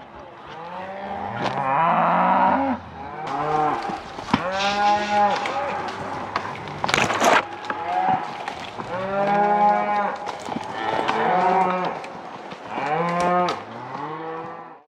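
A herd of cattle bawling: several cows mooing in long, drawn-out calls, one after another and sometimes overlapping. A short noisy burst cuts in about seven seconds in.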